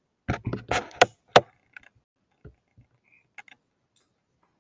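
A quick run of close-up clicks and knocks, the two sharpest about a second in, followed by a few faint scattered ticks.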